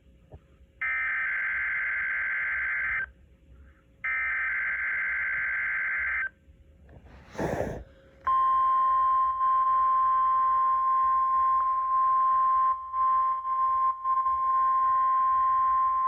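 NOAA Weather Radio alert signalling: three screeching bursts of SAME digital header data, each about two seconds long with short gaps, then a brief crackle of noise. About eight seconds in, the steady 1050 Hz warning alarm tone starts and holds on one pitch.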